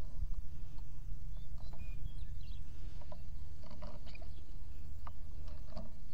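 Steady low wind rumble on the camera microphone, with scattered light clicks and rustles of handling.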